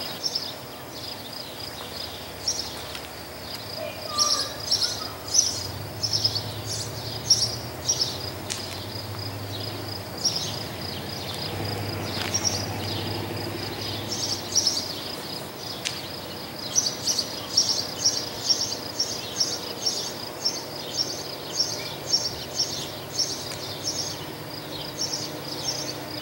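Steady high insect buzz with birds chirping over it; the chirps repeat about one or two a second in the second half. Underneath runs a faint low rumble from the distant approaching consist of EMD diesel locomotives.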